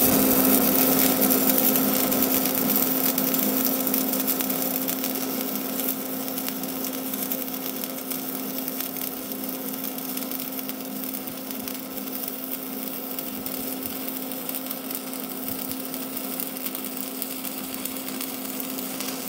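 Stick (MMA) welding arc from a 3.2 mm 6013 electrode laying a fillet weld on DC: a steady crackle and sizzle with a constant hum under it, slowly getting quieter as the run goes on.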